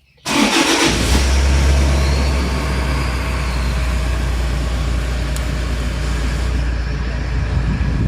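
Toyota Prado 3.0-litre four-cylinder turbodiesel started: a short burst of cranking as it catches, then a steady low idle. A faint whistle from the turbo rises and falls about two seconds in.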